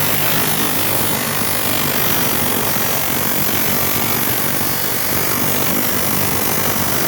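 Chop saw running steadily.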